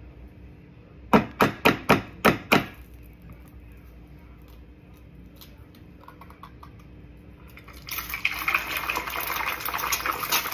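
An egg knocked six times in quick succession to crack the shell, a few faint clicks as the shell is pulled open, then from about eight seconds in a steady sizzle as the egg hits hot olive oil in a small non-stick skillet.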